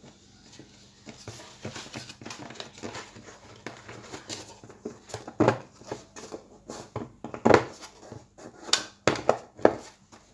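Crinkling, scraping and irregular clicks from a new voice coil and its card shims being worked by hand into the magnet gap of an 18-inch bass speaker, with a few sharper ticks in the second half.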